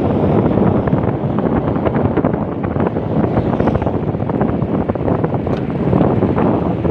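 Wind buffeting the microphone of a camera on a moving bicycle: a loud, steady rush.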